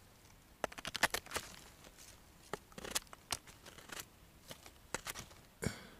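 Dry forest litter and twigs crackling and rustling at close range, with a quick run of sharp snaps about a second in and scattered single cracks after.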